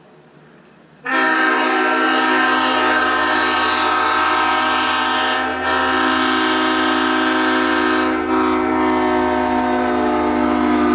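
Leslie multi-chime railroad air horns blowing one long chord. It starts abruptly about a second in and is held for about ten seconds, with two brief dips.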